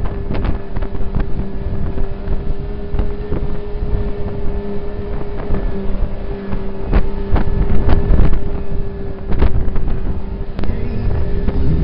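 Snowmobile engine running at a steady pace while riding, with a constant whine, and wind buffeting the microphone. Scattered knocks and rattles run through it.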